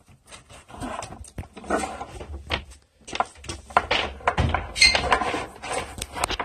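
Irregular rustling, scraping and knocking as a thick earth cable is pushed and pulled round the back of kitchen cabinets, with a few dull thumps against the units.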